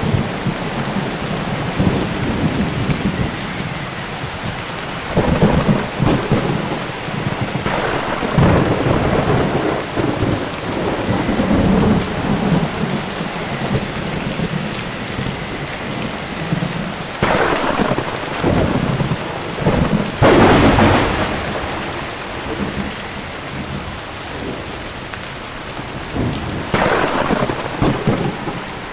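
Volcanic eruption rumbling continuously with irregular booms and a rain-like hiss, and three sharper, louder blasts in the second half.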